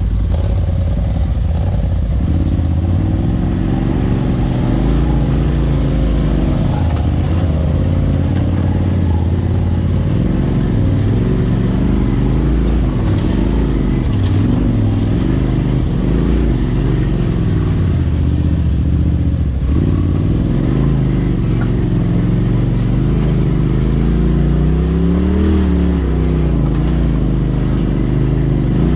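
Polaris RZR side-by-side's engine running under load on a rocky trail, its pitch rising and falling again and again as the throttle is worked, heard from the driver's seat.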